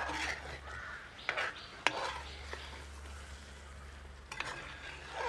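A flat spatula stirring and scraping thick crab masala in a metal uruli on a gas stove: a few scraping strokes and one sharp clink against the pan about two seconds in. Crows caw in the background.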